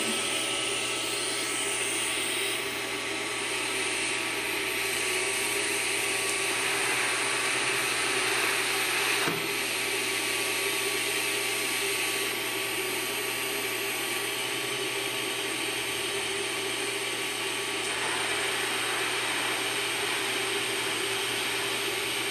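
Steady hiss with a low hum from a TIG welding setup, the argon shielding gas flowing at the torch during lift-arc welding of a steel lap joint. A single click about nine seconds in.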